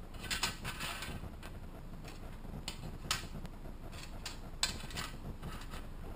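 Small hard plastic parts clicking and scraping against a baking tray and each other as they are picked out and set down: a cluster of scrapes in the first second, then several separate sharp clicks.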